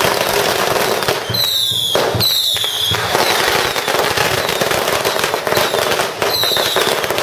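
Strings of firecrackers going off in a dense, continuous crackle of rapid bangs, with a few short falling whistles about a second and a half in and again near the end.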